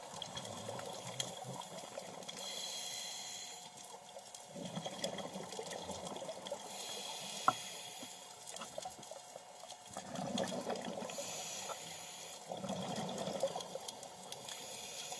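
Scuba diver breathing underwater through a regulator: a hiss on each inhale alternating with a burst of bubbling on each exhale, about every four seconds. One sharp click sounds near the middle.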